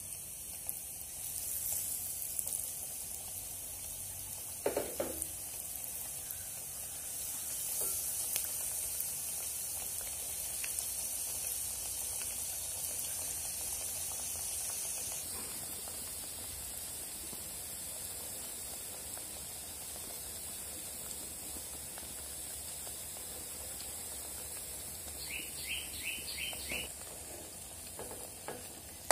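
Hot oil sizzling steadily as gram-flour-battered, breadcrumb-coated jackfruit leaves deep-fry in a pan.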